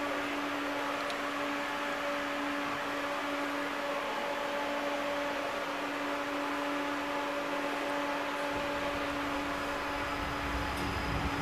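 Interior of a TVZ 71-931 "Vityaz'-M" tram: a steady electrical hum with a constant drone while it stands. About eight seconds in, a low rumble builds and a faint high whine joins near the end as the tram begins to move.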